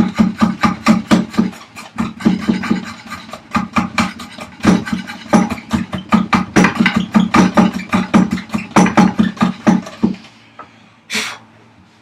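Hand rasp working the wooden vise chop in quick short strokes, about five a second, enlarging the opening; the rasping stops about ten seconds in.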